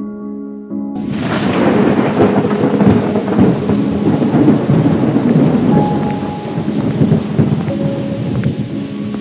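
Heavy rain with thunder rumbling, starting suddenly about a second in as soft piano music stops; the downpour carries on, easing a little near the end.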